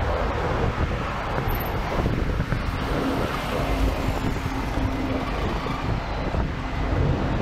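Wind buffeting the microphone over the steady noise of city traffic, heard from a moving sightseeing bus. A faint steady hum comes in about three seconds in.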